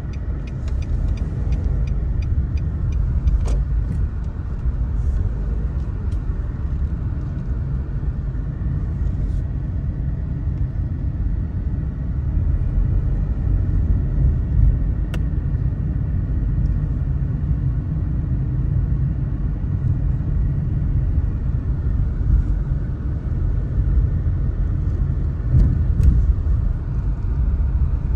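A car driving along a road: steady low rumble of road and engine noise, with a run of fine rapid ticks in the first couple of seconds and a few sharp clicks later.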